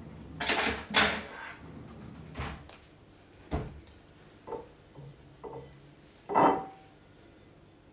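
Household handling noises in a kitchen: a series of light knocks and clatters, about nine in all, as things are moved about and set down on the counters. The loudest comes near the end, with a short ring after it.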